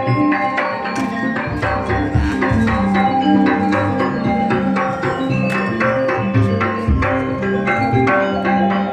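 Music with a steady beat of drum and mallet-percussion strikes over held tones.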